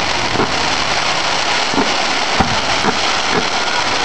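Fireworks display: a dense, continuous crackle from glittering crackle effects, broken by sharp bangs and deep launch thumps, about two a second.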